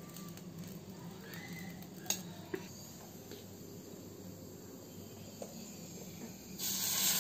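Two light clinks of a steel spoon on steel dishes, then near the end dosa batter spooned onto the hot miniature iron pan starts to sizzle with a sudden loud hiss.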